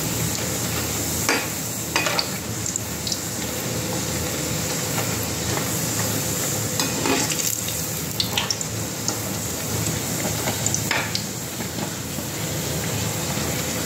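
Urad dal kachori deep-frying in hot oil in a kadai: a steady sizzle, with a few sharp taps of a slotted spoon against the pan as it presses and turns the kachori.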